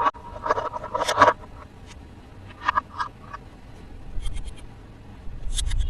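Hands handling toy packaging: irregular scratching and crackling of plastic and cardboard, with a dense cluster of scrapes at the start and scattered ticks after.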